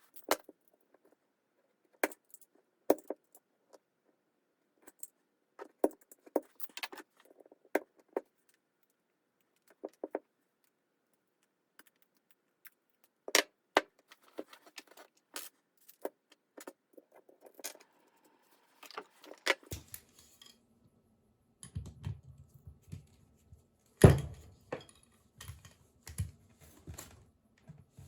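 Scattered sharp clicks, taps and metallic clinks of hand work on an old washing-machine friction damper as its collar is taken off, with heavier knocks and handling thumps in the second half, the loudest about two-thirds of the way through.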